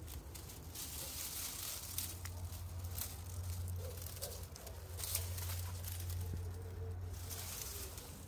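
Footsteps in thin socks on dry leaves and twigs, the leaves rustling and crackling with a few sharp snaps, over a low steady rumble.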